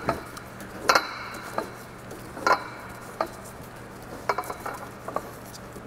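Scattered light metallic clinks and taps, roughly eight separate knocks over several seconds, from tools and metal parts being handled during engine mount work.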